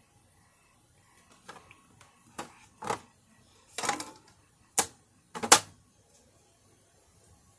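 A DVD being handled and loaded into a DVD player: a series of six or so sharp plastic clicks and clunks, the loudest two near the end.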